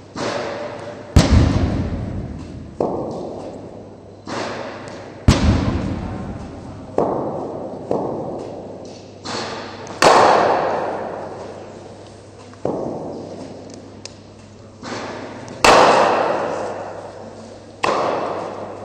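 Cricket ball impacts in a net session: about a dozen sharp knocks of leather ball on bat and pitch, one every second or two, each echoing away.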